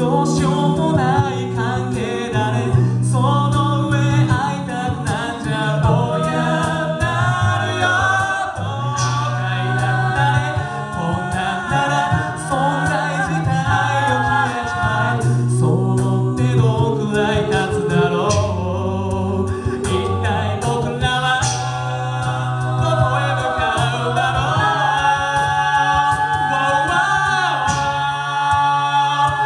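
Six-voice mixed a cappella group singing through microphones: lead and harmony voices over a bass voice that holds long low notes, stepping to a new pitch every second or two.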